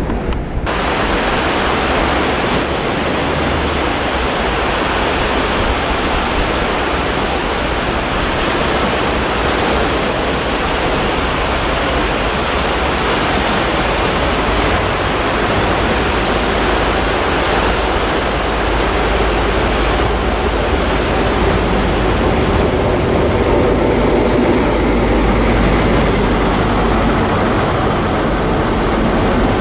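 Loud, steady rushing noise of a train, growing slightly louder and deeper in the last few seconds as it draws near.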